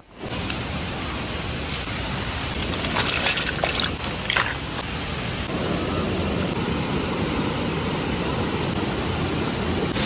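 Waterfall rushing steadily, a dense even roar of falling water, with a few brief sharper sounds about three to four seconds in.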